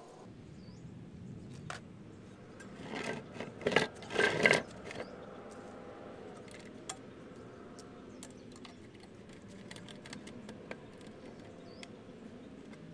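Hand-work noises of wire and pliers against a plastic five-gallon bucket and rebar: scattered light clicks, with a cluster of louder rustling, scraping handling noise about three to four and a half seconds in.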